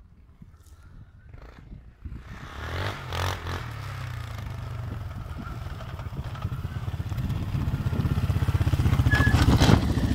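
TGB Target 550 quad's engine running under throttle. It comes in about two seconds in, revs up briefly, then pulls steadily and grows louder as the quad comes close, loudest near the end.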